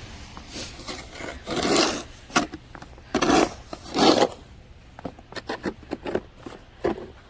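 Snow being scraped off during snow clearing: three long rasping strokes in the first half, then a run of short scrapes and taps.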